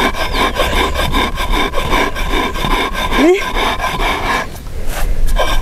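Stone on stone: an Andean grinding stone, the upper stone rocked back and forth over a flat slab, grinding cañihua grain in steady repeated rubbing, rasping strokes.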